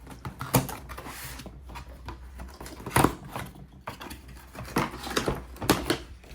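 Hard plastic toolbox case being handled and opened: a handful of sharp plastic clacks and knocks, with rustling in between.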